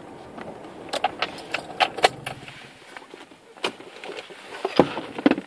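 Keys jangling with light clicks and rattles inside a parked car, in an irregular run from about a second in. A low rumble in the background dies away about halfway through.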